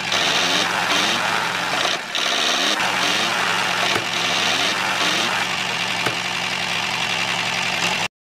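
Engine-like mechanical running, steady with a low hum, dipping briefly about two seconds in and cutting off abruptly near the end.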